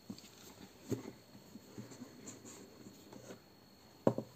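Handling of a cardstock exploding box: faint paper rustling and light scratchy taps, then a few sharper clicks about four seconds in as its lid is lifted off.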